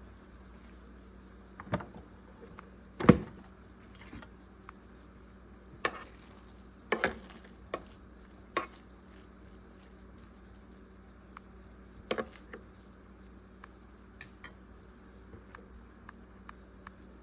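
Cookware and utensils knocking and clinking at irregular intervals, the loudest knock about three seconds in, over a steady low hum.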